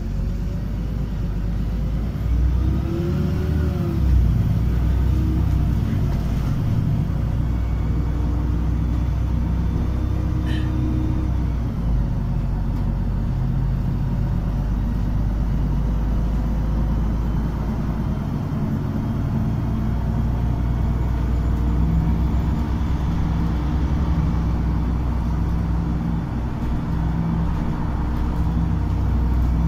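City bus driving along the road, heard from inside the passenger cabin: a steady low rumble of engine and tyres.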